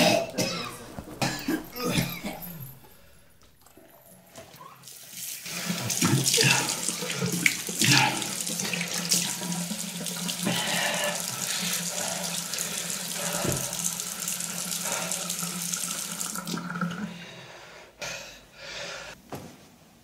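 Water running from a tap into a bathroom sink as a steady rush, starting about five seconds in and stopping a few seconds before the end.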